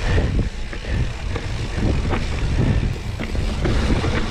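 Wind rushing over the microphone with a steady low rumble and irregular knocks, as a mountain bike is ridden over rough ground.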